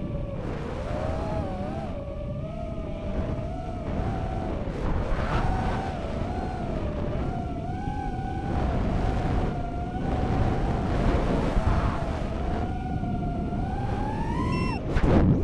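Racing quadcopter's four Racerstar BR2306S 2700KV brushless motors spinning Dal 5045 three-blade props, heard through the onboard RunCam Split: a buzzing whine whose pitch swoops up and down with the throttle over a constant wind rush. Near the end the pitch climbs and there is a brief, louder rushing burst.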